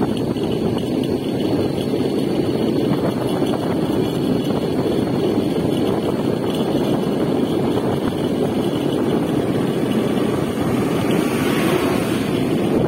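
Wind rushing over the microphone on a moving motorcycle riding downhill, with engine and road noise underneath. The wind hiss swells near the end.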